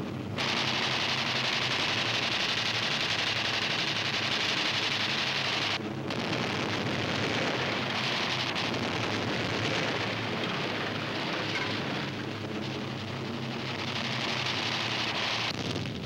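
Dense, steady din of fighter-plane engine noise and rapid machine-gun fire, dipping briefly about six and twelve seconds in.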